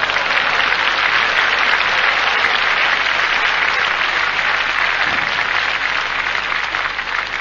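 Live audience applauding after a cabaret punchline, a dense even clapping that builds over the first second or two and tapers off near the end.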